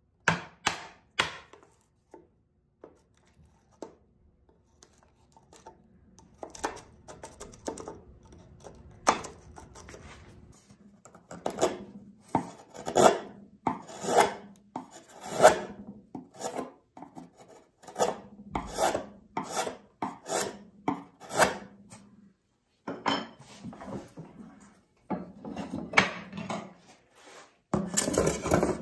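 Hand chisel work in pine: a few quick sharp chisel cuts at the start, then a run of paring strokes about once a second as a tenon is bevelled, and near the end a bench hand plane begins shaving the board.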